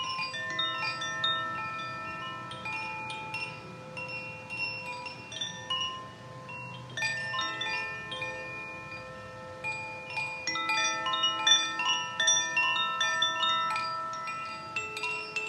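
Koshi bamboo wind chime, the Air element, swung by hand so that its clapper strikes the tuned rods inside. They ring clear, crisp overlapping notes that hang on and die away slowly, with strikes coming thicker about seven seconds in and again from about ten to thirteen seconds.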